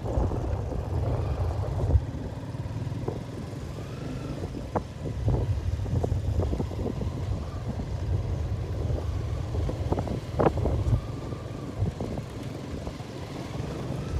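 Motorbike riding along a bumpy dirt road: a steady low engine and road rumble with wind buffeting the microphone, and scattered knocks and rattles from the bumps.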